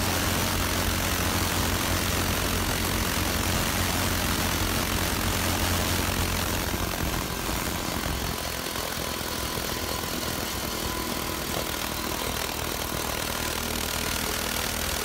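Internal combustion engine running steadily, a low hum under a constant rushing hiss of air; the low hum weakens about seven seconds in.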